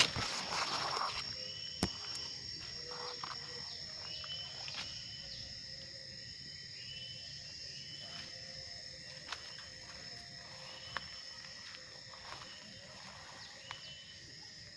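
Insects buzzing steadily in a field, with short chirps repeating every second or two and a few faint clicks.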